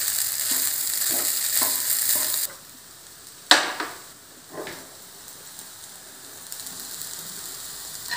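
Fried rice sizzling in a hot non-stick pan while a wooden spatula stirs it, knocking against the pan about every half second. The sizzle cuts off abruptly about two and a half seconds in; a second later comes a single sharp clank as the pan is handled, then a softer knock and a faint hiss.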